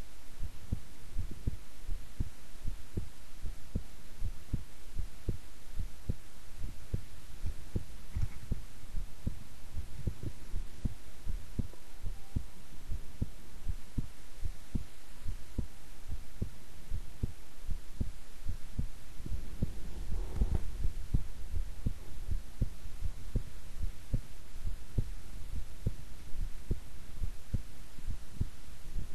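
A woman's heartbeat at rest, a steady, even pulse of low thumps. A brief rubbing noise comes about twenty seconds in.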